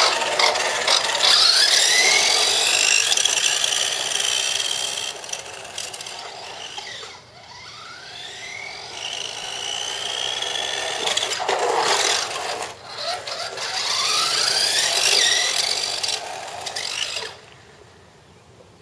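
Electric motor and drivetrain of a 1990s Air Beam RC car whining at high pitch, rising several times as the car speeds up, then dropping away suddenly near the end.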